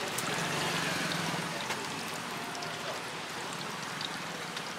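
Samosas deep-frying in a large kadai of hot oil: a steady sizzle with small crackles.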